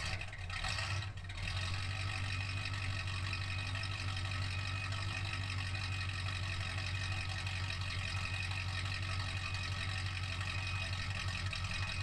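Old pickup truck engine idling steadily just after a cold start, heard from behind the truck at its exhaust.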